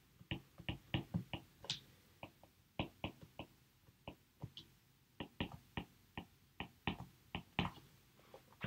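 Stylus tip tapping and clicking on a tablet screen during handwriting: a string of short, sharp, irregular clicks, several a second.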